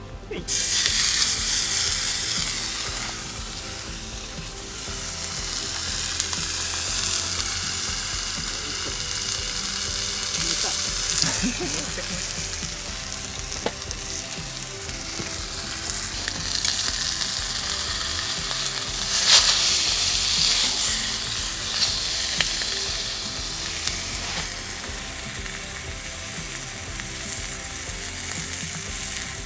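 Food frying in a pan: a steady sizzle with a few pops.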